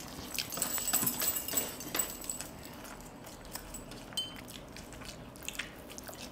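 People eating by hand at close range: wet chewing and lip-smacking with small clicks of fingers in food on steel plates, busiest in the first two seconds, then sparser.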